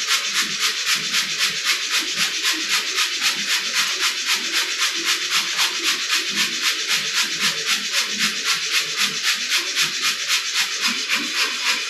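Background music with a fast, even beat of hissy strokes, about five a second, over a shifting lower part.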